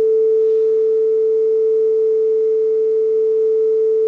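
Steady 440 Hz test tone played from a calibration test tape on a NAD 6155 cassette deck. The deck's speed is adjusted to within a fraction of a hertz of the correct pitch.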